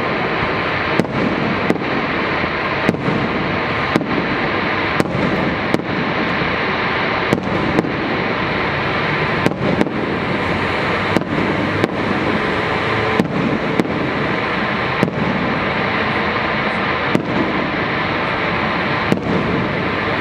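Fireworks display: a continuous din of shells bursting, with sharp bangs about once a second.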